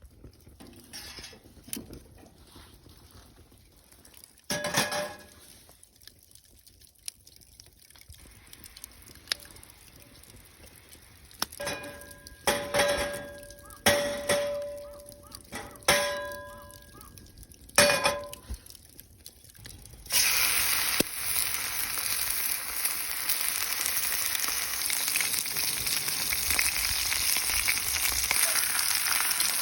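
Several metal clinks and knocks of cookware, some ringing briefly. About two-thirds of the way in, a loud steady sizzle starts suddenly as steak is laid into a hot iron frying pan.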